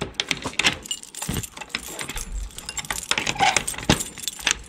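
Irregular rattling and clinking, with a few dull knocks.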